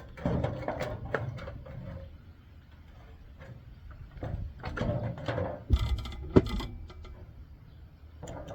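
Parts of a microwave oven's control panel being taken apart by hand: irregular scraping, rattling and clicking of metal and plastic, with two sharp knocks about six seconds in.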